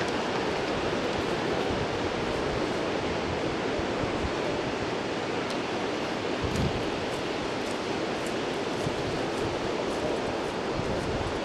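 Steady outdoor rushing noise of wind and sea surf, even and unbroken, with a few faint ticks.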